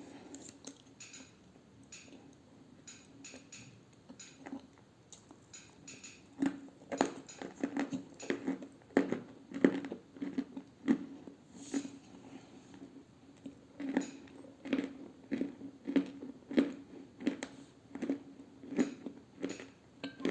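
A person chewing dry edible clay close to the microphone, with crisp crunches. They are soft at first and become louder from about six seconds in, at roughly one or two bites a second.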